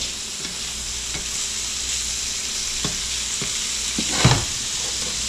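Chunks of pompano fish sizzling steadily in butter in a nonstick frying pan, with a slotted spatula scraping and tapping against the pan as they are stirred; a few knocks from about three seconds in, the loudest a little after four seconds.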